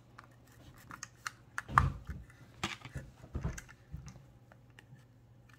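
Plastic Lego bricks clicking and tapping as they are handled and fitted together, in scattered light clicks with a few soft knocks near the middle.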